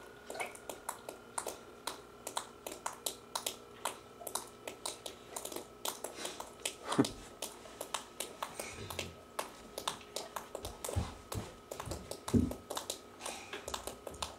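Water dripping from a leaking air-conditioning unit: a fast, irregular run of sharp drips over a faint steady whine, with a louder knock about seven seconds in and a few dull thumps.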